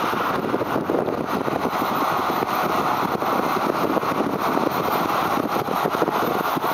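Fendt 826 Vario tractor's six-cylinder diesel engine running steadily under load as it pulls a Horsch cultivator through the soil.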